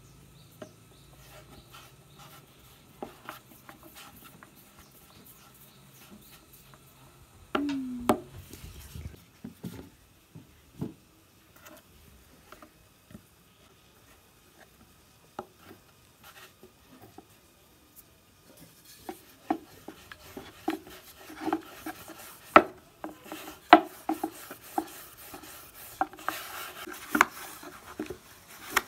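Hand-shaped dough balls being set down on a wooden board, with scattered soft taps and one short falling tone about eight seconds in. In the last ten seconds a wooden rolling pin rolls dough out on the board, with rubbing and frequent sharp knocks of wood on wood.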